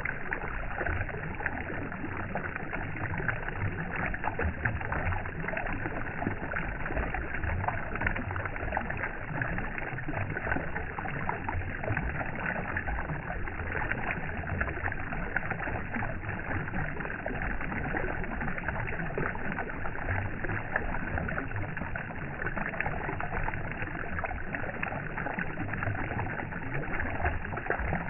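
Steady rushing, lapping water with a low rumble underneath, continuous and unchanging.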